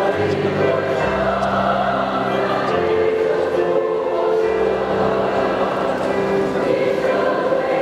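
A large mixed choir of men and women singing together in long held chords that change every second or so.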